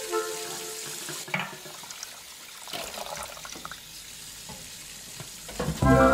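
Cafe kitchen sounds: a steady hiss, like a running tap or food frying, with scattered clinks of crockery and utensils. Music fades out near the start and comes back in near the end.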